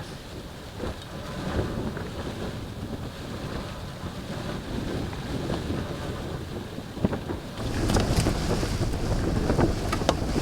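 Blizzard wind rumbling against the tent and buffeting the microphone. It grows louder near the end, with scattered knocks and clicks of handling on top.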